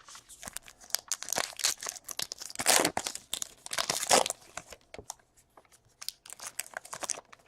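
A trading card pack's wrapper being torn open and crinkled, with dense crackling for the first four seconds or so, then scattered light clicks and rustles.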